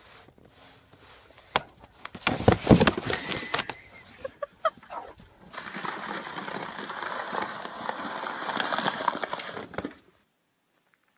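Snow shovel scraping along a snowy asphalt driveway as it pushes snow: a steady scrape over the second half that cuts off suddenly near the end. Earlier, a few seconds of loud knocks and clatter.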